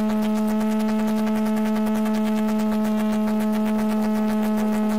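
Background electronic music holding one sustained low synth note, a steady droning tone with overtones, over a faint fast even tick.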